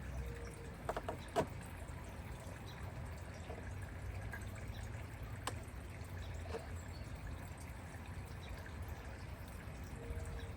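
Water trickling over a steady low rumble, with a few light knocks about a second in and another near the middle.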